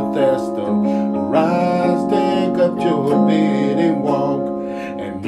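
A slow gospel song playing: instrumental accompaniment under a voice that holds a long, wavering note starting about a second and a half in.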